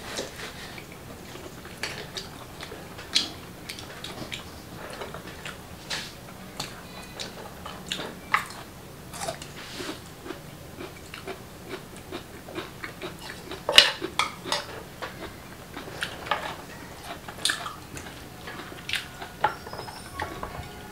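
Clam shells and chopsticks clicking and clacking against each other and the dishes while eating, with chewing between: an irregular series of sharp clicks, one louder clack about two-thirds of the way through.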